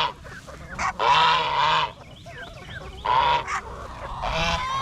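Goose honking loudly, three calls, the longest about a second in, with fainter short bird calls between; the flock is calling for its feed, which has been held back this morning.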